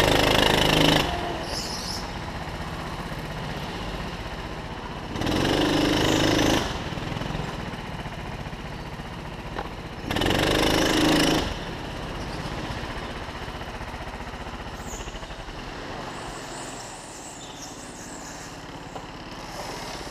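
Go-kart engine heard from the driver's seat, opening up to full throttle three times for about a second each, at the start, about five seconds in and about ten seconds in, with a rattly lower running between. After the last burst it runs steadily on a light throttle and gets a little quieter near the end as the kart slows.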